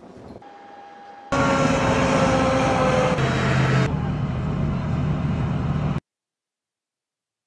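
Multiple rocket launcher trucks' engines running, with steady engine tones over a broad rumble; the sound starts suddenly about a second in and cuts off abruptly about six seconds in.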